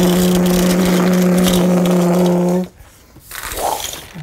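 A loud, steady motor-like drone with a hiss over it, holding one pitch, cuts off suddenly a little under three seconds in; a short faint rustle and a few light clicks follow.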